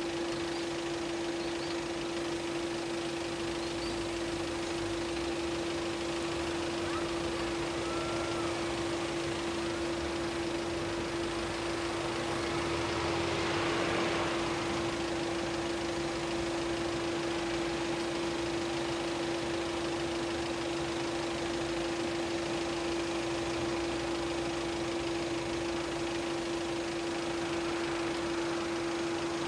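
Level-crossing warning device sounding a continuous electronic tone while the barriers are down. Around the middle there is a brief swell of rushing noise.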